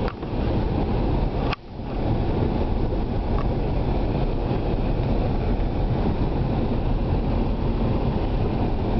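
Car driving slowly along a dirt road, heard from inside the cabin: a steady low rumble of engine and tyres. The sound cuts out briefly twice in the first two seconds.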